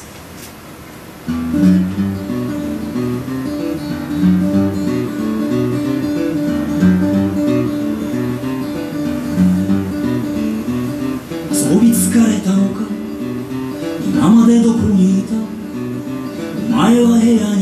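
Acoustic guitar strummed as a song intro, starting about a second in. A man's voice comes in over the guitar in the second half.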